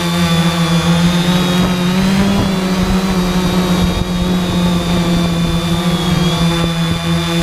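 3D Robotics IRIS quadcopter's brushless motors and propellers humming steadily in flight, rising slightly in pitch about two seconds in and then settling. Gusty wind rumbles on the microphone underneath.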